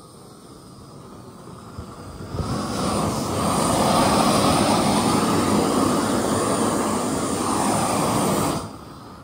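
Propane torch burning with a steady roar as it scorches a carved wooden dog. It starts quieter, swells to a loud, even roar about two and a half seconds in, and drops away near the end.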